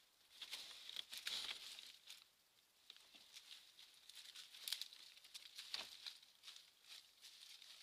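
Badger scrabbling and digging at soil and dry leaves at the foot of a fence: a run of faint scratchy rustles and clicks, busiest about a second in and again around five seconds in.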